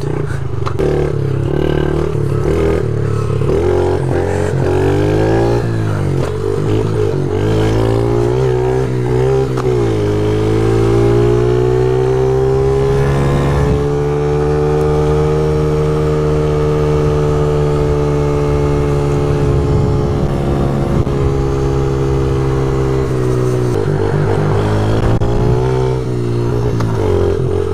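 Yamaha TTR50 pit bike's small single-cylinder four-stroke engine, heard from on the bike while riding. The revs rise and fall several times over the first ten seconds, hold at a steady pitch while cruising, and change again near the end.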